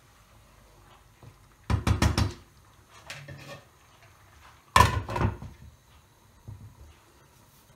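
Cookware clatter: a wooden spoon knocks several times against a frying pan. About five seconds in, a lid is set down onto the pan with a louder clatter and a short ring.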